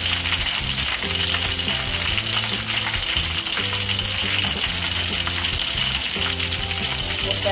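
Battered tempeh slices (tempe mendoan) deep-frying in hot oil in a wok: a steady, dense sizzle and crackle.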